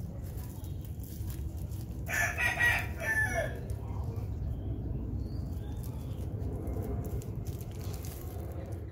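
A rooster crowing once, about two seconds in, for about a second and a half with a falling end, over a steady low background rumble.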